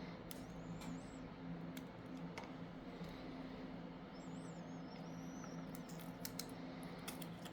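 Scattered clicks of a computer keyboard and mouse over a steady low electrical hum.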